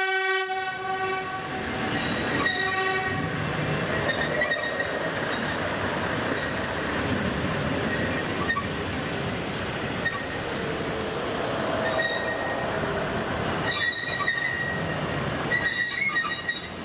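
Vintage ex-CFL diesel railcar train (Westwaggon Z208 set) passing close by at low speed. A horn blast dies away in the first second, then comes steady running noise with thin wheel squeal. Near the end there are bunches of wheel clicks over the rail joints and points.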